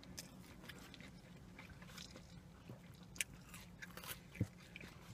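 Quiet eating and drinking sounds: chewing and sips of soda from a paper cup, with scattered small clicks and taps over a faint low hum.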